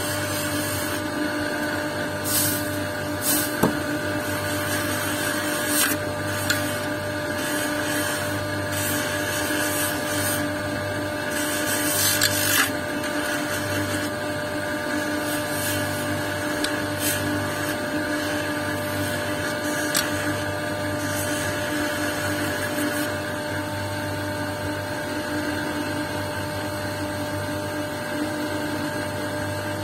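Electric lapidary wheel running with a steady hum while a dopped jasper stone is held against it, giving irregular scrapes and brief ticks, most of them in the first half. Toward the end the stone is off the wheel and only the motor's hum remains.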